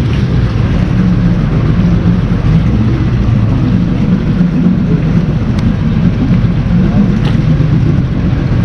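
Small tour boat's engine running steadily at cruising speed, with water and wind noise over it.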